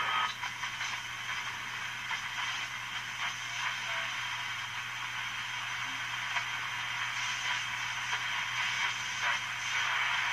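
Static and hiss from a Hallicrafters S-38 shortwave receiver's speaker as its tuning knob is turned between stations, with faint crackles and a low steady hum underneath.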